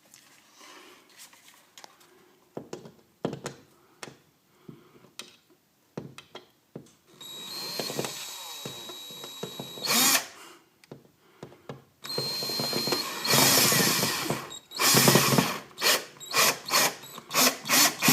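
Power drill driving screws to pull a sagged plaster ceiling sheet back up. After a few seconds of faint clicks, the drill runs steadily with a thin whine about seven seconds in and again about twelve seconds in, then in several short bursts near the end.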